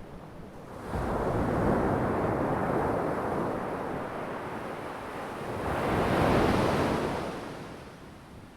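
Ocean waves breaking on a shore. One wave crashes in about a second in and washes on for several seconds, then a second wave swells, breaks and fades away near the end.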